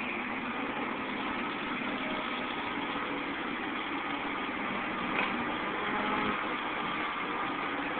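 Caterpillar 235 hydraulic excavator's diesel engine running steadily while it digs, with a slight swell in the sound about five seconds in.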